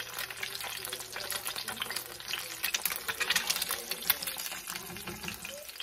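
Egg frying in hot oil in a cast-iron skillet: a steady crackling sizzle, with a metal spatula scraping on the pan as it is worked under the egg.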